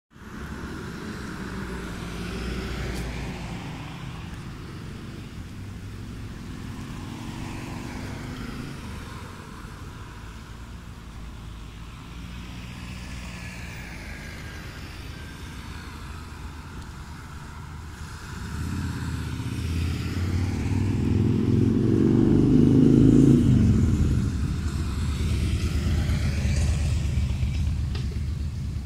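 Road traffic running by, a steady low engine rumble. About two-thirds of the way in a vehicle grows much louder, passes loudest with its pitch rising then falling, and the traffic stays louder afterwards.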